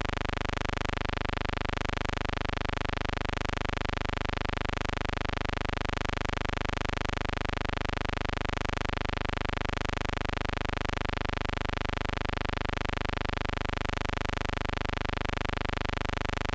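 A steady, unchanging electrical buzz with many overtones, holding one pitch throughout.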